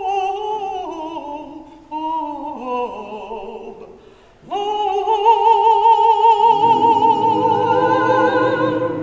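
Male soloist singing in a trained voice with strong vibrato: a phrase that steps down in pitch, a short breath about four seconds in, then a long held final note scooped up into. About two seconds into that note the choir comes in under it with a low sustained chord, and the sound fades out near the end.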